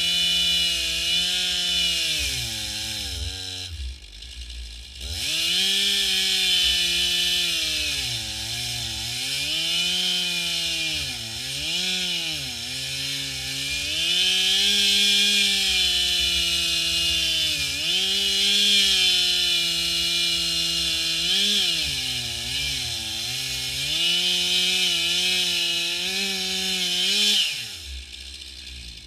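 Stihl 441 two-stroke chainsaw driving a Granberg Alaskan chainsaw mill through a log at full throttle. Its engine pitch keeps sagging and recovering as the bar loads up in the long rip cut. The throttle eases off briefly about four seconds in, and near the end the engine drops back toward idle.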